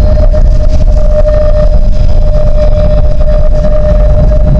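Tram running along its track: a heavy, steady low rumble of the wheels and running gear, with a steady whine held over it that stops near the end.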